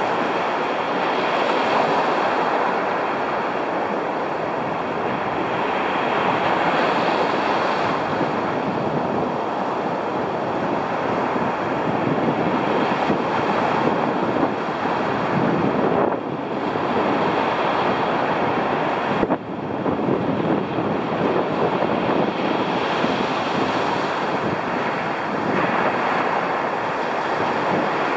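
Heavy storm surf breaking and washing up the beach at the water's edge: a continuous roar that swells and eases every few seconds.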